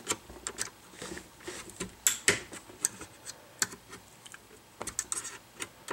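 Irregular light clicks and snaps of a spudger prying along the seam between the screen panel and the lid of a Samsung Series 7 NP700Z7C laptop, as the stuck panel is worked loose. The sharpest clicks come about two seconds in and again past the middle.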